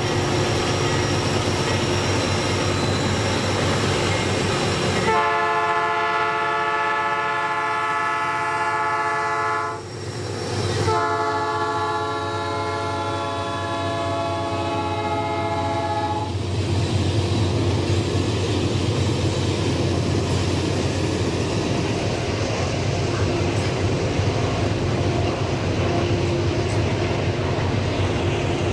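Freight train of diesel-electric locomotives and covered grain hopper cars passing close by. A train horn sounds two long blasts, one about five seconds in and one about eleven seconds in, over the steady rumble and clatter of the cars rolling over the rails.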